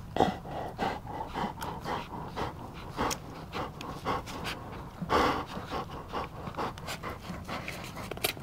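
Litter of Mastín puppies suckling at their mother's teats: a busy run of short wet sucking and smacking noises, with small squeaks and a louder snuffle about five seconds in.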